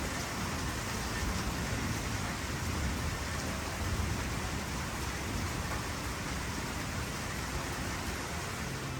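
Steady, even rushing of falling water, as of rain.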